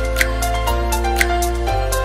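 Background music with a steady beat and held bass notes that change about once a second.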